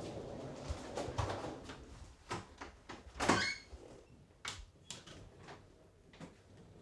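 A door in a small room being opened, with a short scraping slide about three seconds in, amid scattered light knocks and clicks of someone moving about.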